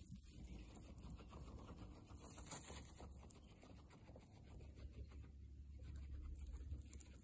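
Guinea pig chewing fresh grass: faint, rapid crunching and nibbling clicks.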